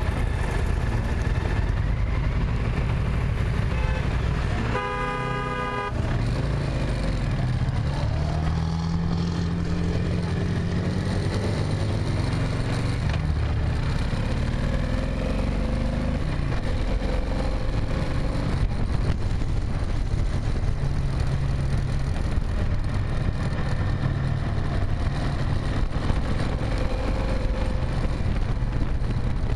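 Vehicle driving in traffic: a steady engine and road rumble. An engine speeds up several times from about eight to sixteen seconds in, its pitch rising each time. A car horn honks once for about a second, about five seconds in.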